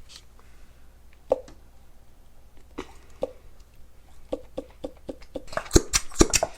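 Scattered small clicks and plops of glue being poured and squeezed from a plastic glue bottle into a container. They come more often toward the end, where several loud sharp knocks follow.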